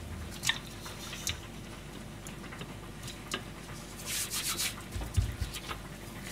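Hands rubbing and wiping over a plastic cutting board while handling raw fish, with a few light clicks and a scratchy rub about four seconds in, then a soft thud.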